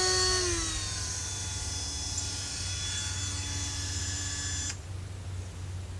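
Dremel rotary tool with a glass bit drilling into a windshield rock chip. Its whine drops in pitch about half a second in, runs steady, then stops suddenly about a second before the end.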